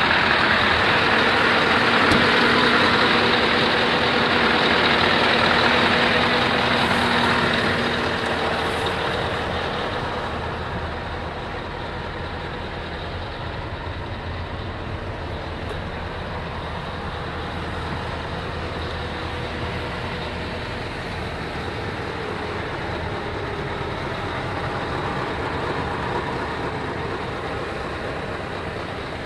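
Scania R 560's 15.6-litre V8 diesel idling steadily. It is heard close up by the front wheel at first, then quieter and duller from inside the cab from about a third of the way in.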